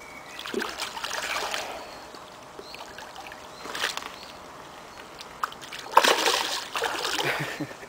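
A hooked mirror carp thrashing and splashing at the water's surface as it is played in, in irregular bursts, the loudest about six seconds in.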